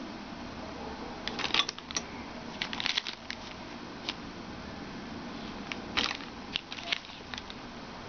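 Packaging and parts of a Corsair H45 liquid CPU cooler being handled during unboxing: rustling with scattered clicks and taps, busiest in short flurries about one and a half, three and six seconds in.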